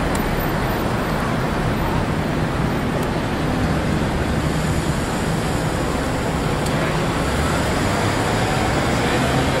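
City street traffic noise: a steady wash of passing cars at an intersection.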